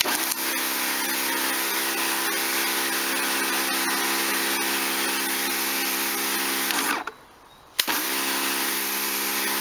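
Kärcher K2 electric pressure washer running with its lance spraying: a steady motor-and-pump hum under the hiss of the water jet, with no pulsing, a sign the leak and pulsing fault is cured. About seven seconds in, the motor winds down and stops. Under a second later it starts again with a click and runs on.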